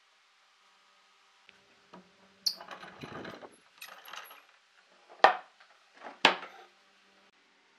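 Metal pipe clamps being taken off a glued-up pine panel on a wooden workbench. There is a clatter of metal and wood about two and a half seconds in, then a shorter rattle, then two sharp knocks about a second apart, the loudest sounds.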